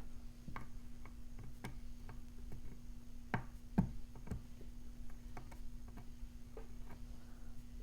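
Light, scattered clicks and ticks of a lock pick and tension wrench working inside a Brady Safekey padlock's keyway, with a couple of louder clicks about three and a half seconds in, over a faint steady hum.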